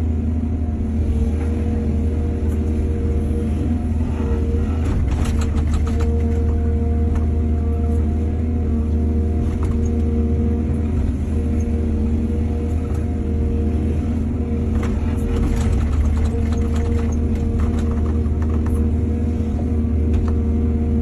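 Excavator diesel engine running steadily with a deep rumble, with two spells of clattering and knocks from the machine's work, about four seconds in and again about fifteen seconds in.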